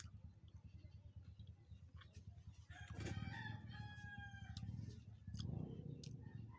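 A rooster crowing once: one drawn-out call starting about three seconds in and lasting nearly two seconds, over a faint low rumble.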